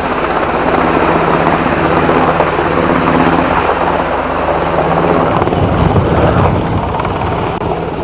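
Loud, steady engine drone under heavy rushing noise; the drone fades about five and a half seconds in.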